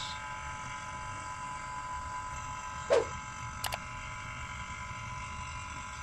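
Refrigeration vacuum pump running steadily with a constant whine, pulling a vacuum on an empty car AC system through the manifold gauges. A brief knock sounds about three seconds in.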